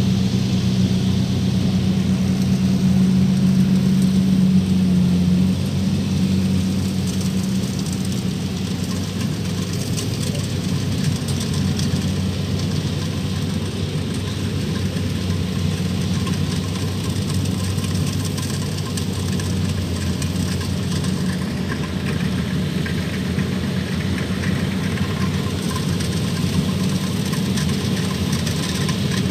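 Kubota DC-105X combine harvester's diesel engine running steadily as the machine harvests rice. It is a low hum, louder for the first five seconds or so, then even.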